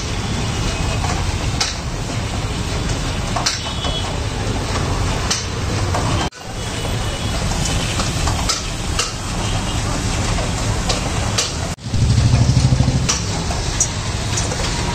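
Roller ice-cream machine's motor-driven frozen drum running with a steady low hum, with scattered small clicks and knocks. The sound cuts out abruptly twice, about six seconds in and near twelve seconds, and comes back with a louder low hum after the second break.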